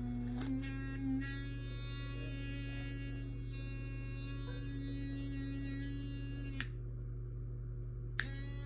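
Microwave oven running with a steady hum while heating water. The hum stops with a click about six and a half seconds in, and a second click follows near the end.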